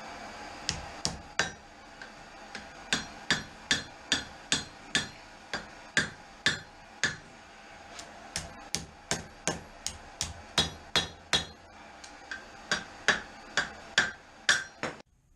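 Hand hammer striking hot knife steel on an anvil in a long run of blows, about two to three a second, each with a short metallic ring, over a steady background hum. The blows stop suddenly near the end.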